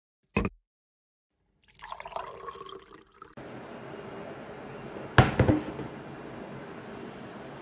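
A folder set down on a desk with a sharp knock and a smaller second knock, over steady room hiss. A short click and some rustling handling come before it.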